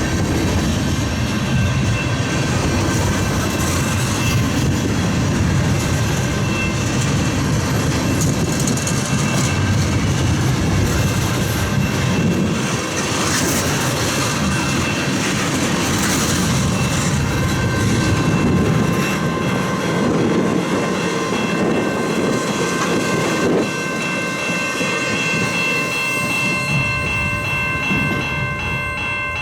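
CN freight train rolling past a level crossing, its cars rumbling with wheels clacking over the rail joints. A crossing bell rings steadily and comes through more clearly near the end as the train noise eases.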